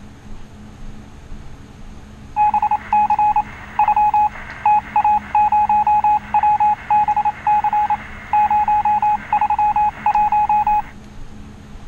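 Electronic beeper sounding runs of rapid, single-pitched beeps in irregular groups, starting about two seconds in and stopping about a second before the end.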